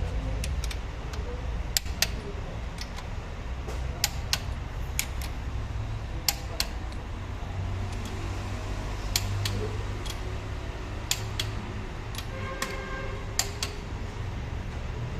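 Irregular sharp metallic clicks and clinks of tools and parts being handled during engine repair work, over a steady low hum.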